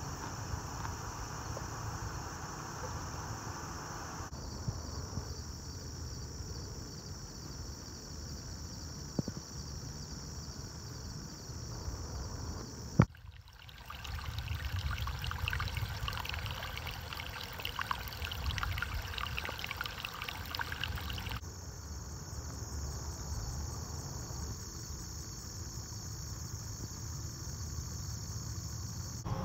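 Steady chorus of insects. Several seconds in the middle are louder, with floodwater trickling and gurgling at the grassy edge of the road. A single sharp click comes near the middle.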